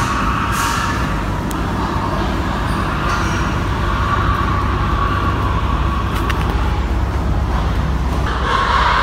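Pigs screaming on a slaughterhouse kill floor, high wavering squeals that swell near the end, over a steady low rumble.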